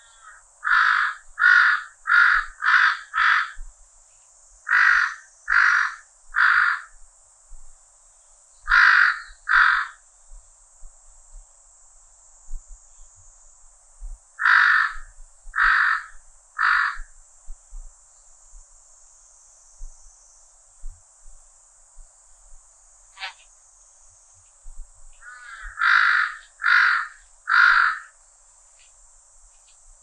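A crow cawing in bursts of two to five harsh caws, with pauses of several seconds between bursts. Behind it runs a steady high cicada drone.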